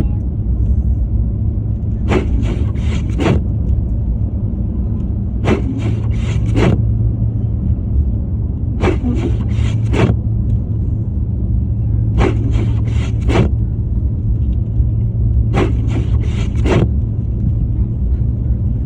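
Car cabin with a steady low engine and road rumble, and windshield wipers sweeping against snow about every three and a half seconds, each pass a short run of several scraping strokes.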